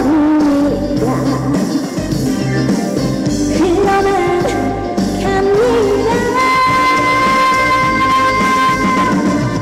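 Live music over loudspeakers: a woman singing over upbeat band backing, with a long note held steady through the second half.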